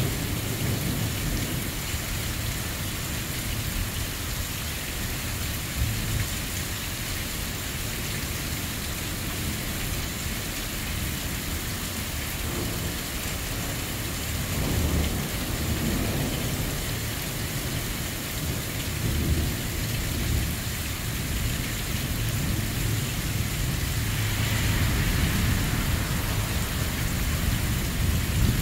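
Heavy thunderstorm rain pouring steadily onto pavement and grass, with rolls of thunder rumbling now and then, one soon after a lightning flash about halfway through.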